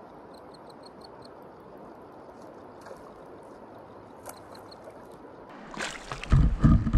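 Steady rush of flowing river water, with a faint run of quick high chirps near the start. Near the end, loud splashing and knocking on the water starts up.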